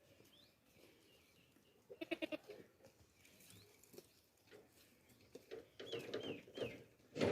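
Baby goats bleating: one quavering, pulsing bleat about two seconds in, then louder calls near the end.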